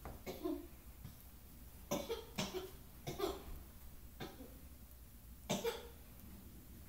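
Short coughs in small bursts: one just after the start, several from about two to three and a half seconds in, one a little later and a double cough near the end.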